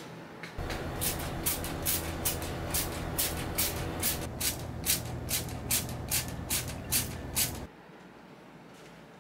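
Plastic trigger spray bottle squirting liquid onto a bowl form, well over a dozen quick squirts at about two or three a second, over a steady low rumble that cuts off suddenly near the end.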